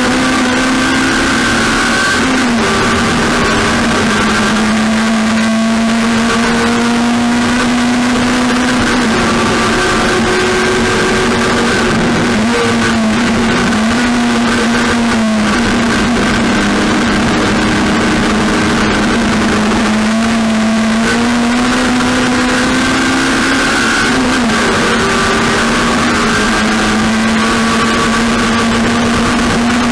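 Race car engine running hard at a steady high pitch, dipping briefly every few seconds as the revs drop and recover, over heavy rushing noise.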